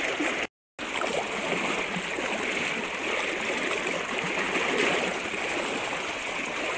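Shallow river current rushing and splashing against a seine net held across the flow. Steady throughout, apart from a brief total cut-out just over half a second in.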